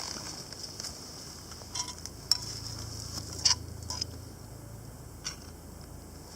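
Scattered sharp pops and light metallic clinks at a campfire with a Dutch oven, over a steady high chirring drone of insects.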